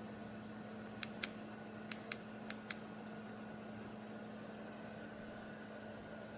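Vornado Transom window fan running with a steady hum. About a second in come six sharp clicks in three quick pairs, from its control buttons being pressed.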